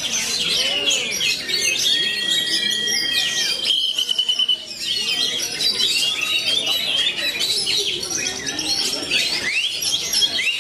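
Oriental magpie-robin singing, with several other songbirds singing at once: many overlapping quick chirps and trills, and a couple of long held whistles a few seconds in.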